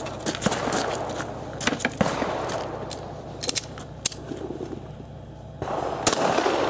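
Footsteps crunching on gravel with scattered clicks as the shooter moves into position. About six seconds in, the first pistol shots of the stage ring out, two in quick succession.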